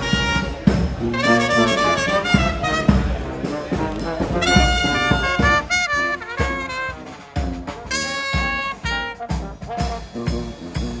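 Street brass band playing jazz: trumpet and trombone phrases over a sousaphone bass line, driven by snare and bass-drum beats.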